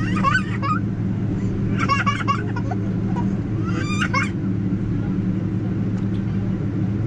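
Three short, high-pitched squeals from a young child, about two seconds apart, over the steady low drone of a Boeing 777's cabin.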